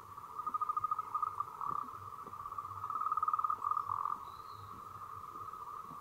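A steady chorus of trilling animal calls, with two louder bouts of rapid pulsing: one about half a second in and another around the middle.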